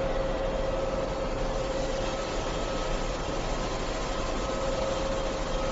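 Steady background hum and hiss with a constant mid-pitched tone, joined by a fainter higher tone about two seconds in; no clear clicks from the fittings stand out.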